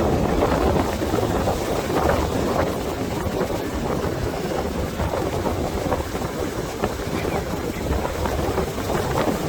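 Strong wind buffeting the microphone with a low, steady rumble, over the rush of ocean surf breaking on the beach.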